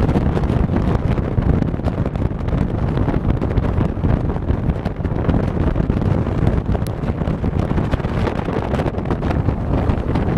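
Wind buffeting the microphone over the low rumble of a four-wheel-drive vehicle driving across desert sand.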